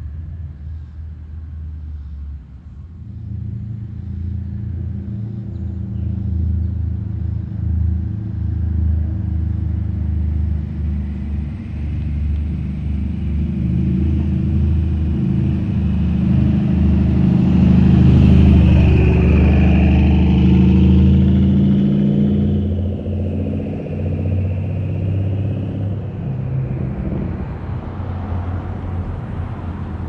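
2012 Mercedes E63 AMG's twin-turbo V8 running through a modified exhaust with downpipes and a custom X-pipe: a deep rumble that swells to its loudest a little past halfway, then eases off.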